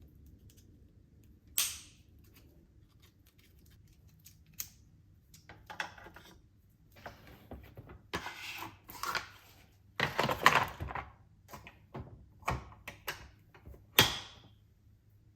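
Objects being handled: a string of irregular clicks, light knocks and rustles, the loudest knocks coming about ten and fourteen seconds in.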